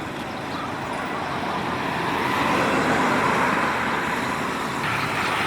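Road traffic noise: a motor vehicle passes, growing louder to a peak about halfway through and then easing off.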